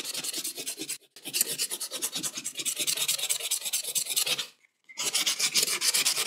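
Sandpaper rubbed rapidly back and forth by hand over a knife handle's curly maple and resin scales, a quick scratchy rasping in even strokes, stopping briefly about a second in and again near the end.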